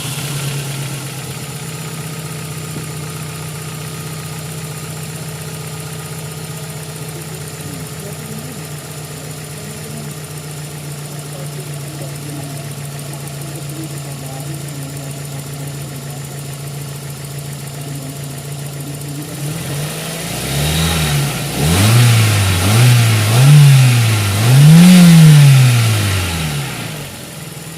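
A fuel-injected car engine idling steadily just after being started, then revved up and down about four times near the end before dropping back to idle.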